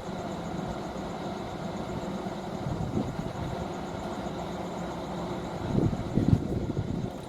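Steady machine hum, with a few short knocks about six seconds in.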